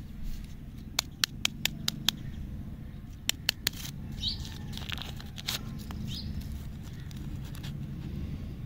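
Lollipop wrapper being unwrapped by hand: a run of sharp crackles about a second in and three more a little past three seconds, then softer crinkling as the paper is peeled off.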